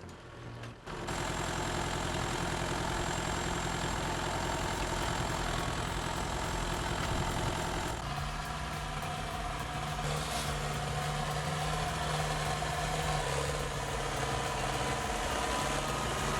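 Engine of a heavy machine running steadily, starting abruptly about a second in; about eight seconds in its note shifts higher.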